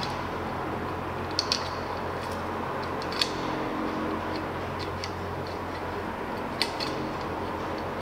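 A handful of sharp metallic clicks and ticks from a brass type F oxygen fitting and gauge assembly being screwed by hand onto an oxygen cylinder's valve, over a steady low hum.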